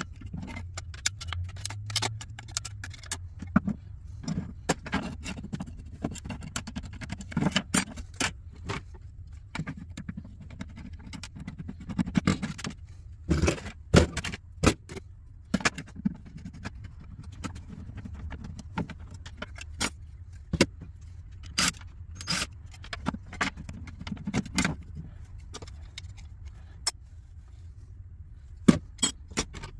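Irregular metallic clicks and clinks of screws, card brackets and hand tools being handled and set down as computer expansion cards are stripped for scrap, over a low steady hum.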